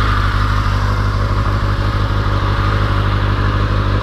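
2013 Kawasaki Ninja 636's inline-four engine idling steadily through its stock exhaust, fully warmed up.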